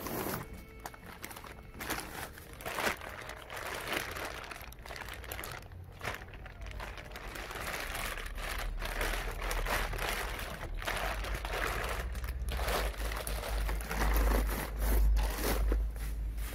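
Thin plastic sheeting rustling and crinkling as a large kimchi-making bag is pulled out and handled, then bubble wrap being crumpled near the end. A low rumble runs under the second half.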